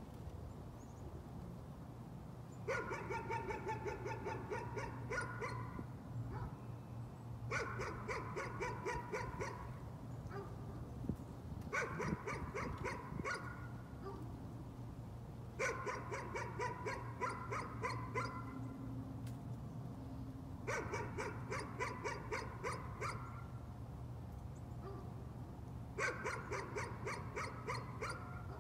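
A dog barking in six bouts, each a quick run of barks lasting two to three seconds, with pauses of a few seconds between them: repeated nuisance barking.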